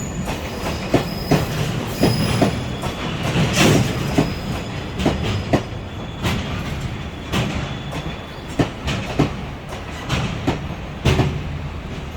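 Freight train wagons rolling slowly into the station. Their wheels clack over the rail joints in irregular pairs, over a low rumble.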